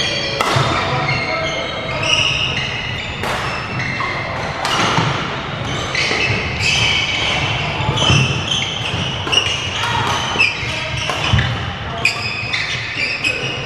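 Badminton rally: rackets striking the shuttlecock every second or two, with sneakers squeaking and thudding on the wooden court floor. Voices can be heard in the hall.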